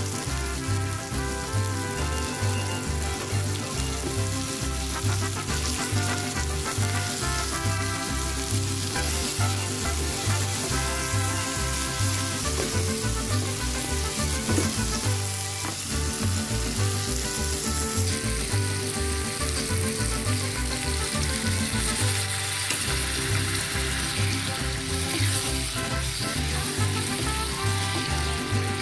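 Potatoes, onions and tomatoes sizzling in hot oil in a frying pan, stirred with a wooden spatula. Background music with a steady bass line plays over the frying.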